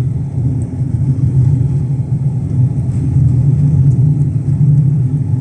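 Steady in-cabin rumble of a Lada Granta driving on a snowy highway: engine and road noise from studded winter tyres.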